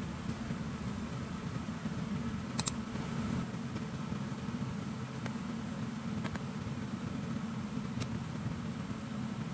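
Steady mechanical hum like a running fan, with a few faint clicks; it cuts off suddenly at the end.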